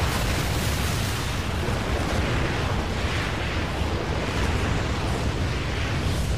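A loud, steady rumbling roar of noise, swelling and easing slowly, added as a sound effect under an intro title.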